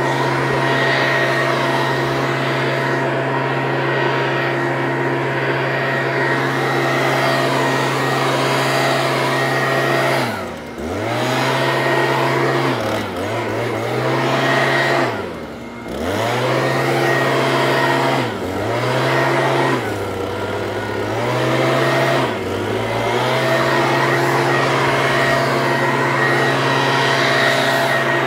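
Leaf blower running steadily at high speed. In the middle stretch its pitch drops and climbs back about six times as it is let off and opened up again, two of the dips deep.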